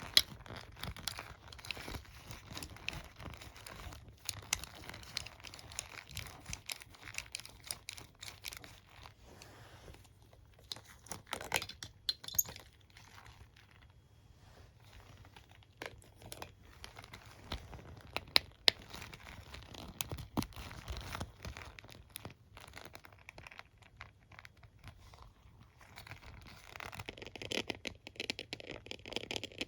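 A hairbrush and comb being handled up close: bristles and teeth scratched, brushed and tapped in a dense run of small clicks and rustles. Busy at first, sparser in the middle, then thickening again near the end.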